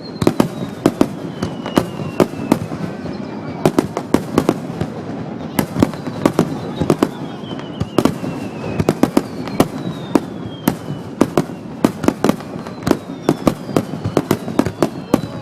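Aerial fireworks going off in rapid succession, a dense run of sharp bangs several a second, with a few whistles falling in pitch among them. The booms sound distorted, as picked up by a compact digital camera's microphone.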